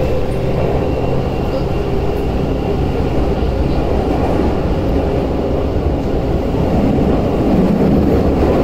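Tokyu 8500 series subway train running through a tunnel, heard from inside the car: a steady, loud rumble of wheels on rails and running gear, with a low hum coming up near the end.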